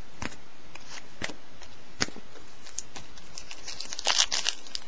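Football trading cards being handled, making scattered light clicks and snaps, then a short burst of crinkling about four seconds in as a card pack is pulled open.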